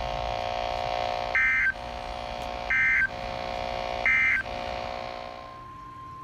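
Three short digital data bursts of the NOAA Weather Radio SAME code, each about a third of a second long and about a second and a half apart: the End-of-Message signal that closes the alert. A steady hum underneath stops about five and a half seconds in, and a steady tone begins.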